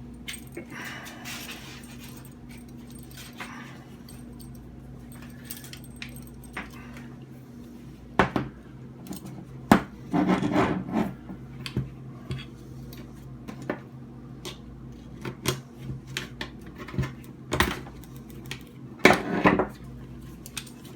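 Metal ratchet of a slackline tensioner being handled while jammed webbing is worked loose: scattered metallic clicks and rattles, with louder clusters about ten seconds in and near the end, over a steady low hum.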